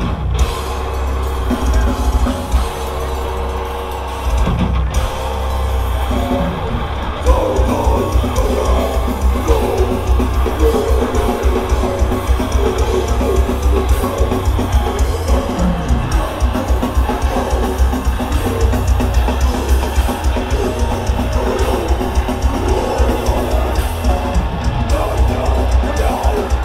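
Heavy metal band playing live: distorted electric guitars, bass guitar and drum kit. The drums pick up into a fast, driving beat about seven seconds in.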